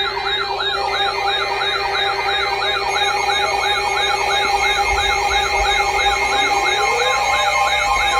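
Electronic alert siren warbling up and down rapidly, about four times a second, over several steady alarm tones. A second wailing tone starts to rise near the end.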